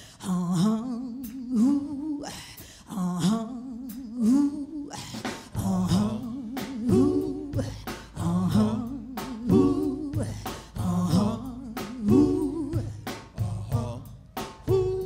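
Live soul-blues music: a woman's wordless, humming vocal line sung over a sharp, even percussive beat, with bass and the band coming in about six seconds in.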